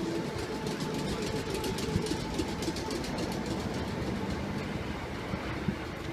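Electric train running at a station platform: a steady rumble of wheels and running gear with a thin, steady whine over it.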